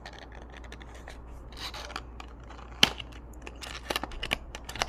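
Packaging of a boxed model train being handled: scattered small clicks, scraping and rubbing, with a sharper click partway through and a quick run of clicks near the end.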